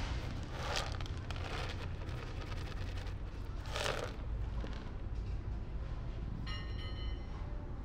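Dry cat food being handled and poured: several short rustling bursts, the strongest about four seconds in as kibble lands on the concrete, over a steady low background rumble. A brief high squeaky call sounds near the end.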